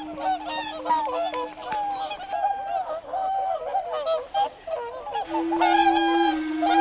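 A flock of whooper swans calling, many short calls overlapping one another, growing louder about five and a half seconds in. A steady low tone runs underneath.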